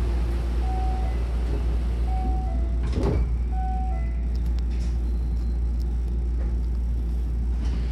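Hankyu train's sliding passenger doors closing. A two-note descending door chime repeats three times, and the doors shut with a thud about three seconds in, all over a steady low hum.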